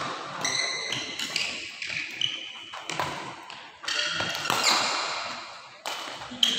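Badminton rally: rackets hitting the shuttlecock in sharp smacks about a second apart, echoing in a large hall, with sports shoes squeaking on the court floor between hits.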